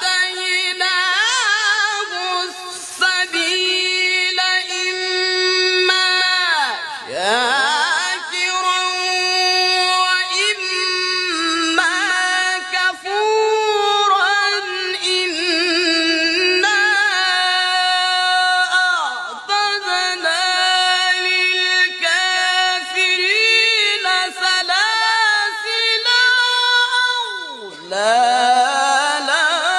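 A man reciting the Quran in the melodic, drawn-out style: one voice holding long ornamented notes with quick runs up and down, and twice sliding steeply down in pitch, about seven seconds in and near the end.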